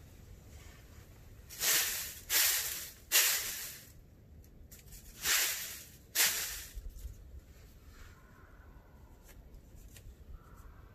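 Dry leaves rustled in five short, loud scratches, each about half a second long, three in quick succession and then two more after a short pause: the leaf scratching that turkey hunters use to imitate a feeding turkey.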